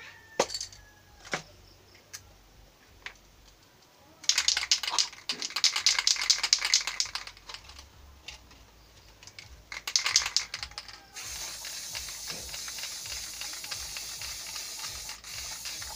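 Aerosol spray-paint can: its mixing ball rattles quickly as the can is shaken, twice, then the nozzle sprays with a steady hiss for about five seconds while blue paint goes onto the plastic bottle.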